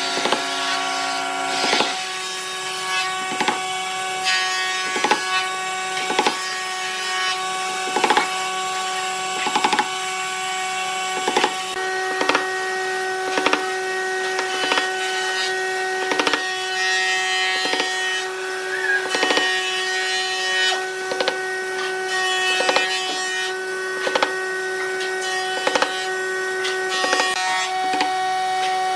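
Claw hammer driving steel nails into a wooden board: sharp blows, roughly one a second, with short pauses between nails.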